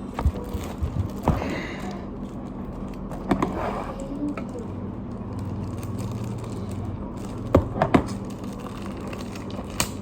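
Product packaging being handled and pried open by hand, with scattered clicks, crackles and rustles and a few sharp snaps, two of them close together late on.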